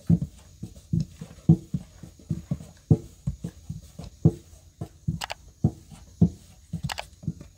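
Thin rolling pins knocking and rolling on flatbread dough over metal trays, an irregular run of dull thuds, two or three a second. A couple of sharper clicks come in the second half.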